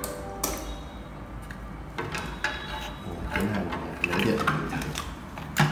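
Handling noise from a plastic MPE LED ceiling panel light and its spring clips being turned over in the hand: a few sharp clicks and knocks, with the loudest click just before the end.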